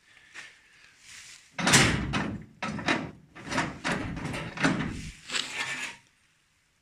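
A run of knocks, clatters and scrapes lasting a few seconds, starting about a second and a half in, as of hard objects being handled and set down.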